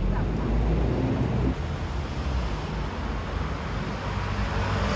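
City street traffic: a steady low rumble of vehicles passing on the road.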